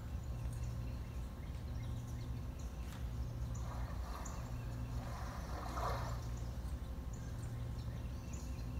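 Steady low hum of auditorium room tone, with faint, indistinct rustling about four and six seconds in.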